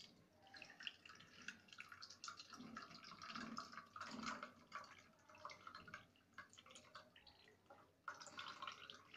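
Buttermilk trickling and dripping from a tilted steel bowl into a plate, a faint, irregular pour that thins out now and then. It is the liquid left after churning, drained off to separate it from the butter.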